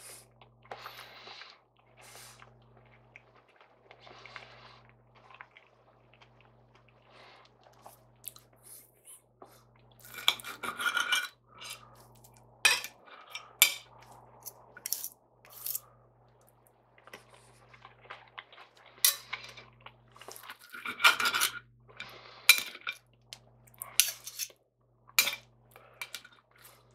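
Knife and fork clinking and scraping on a plate while cutting and gathering up food. There are several sharp clinks and two longer scrapes, about ten seconds in and about twenty-one seconds in, with quieter spells between.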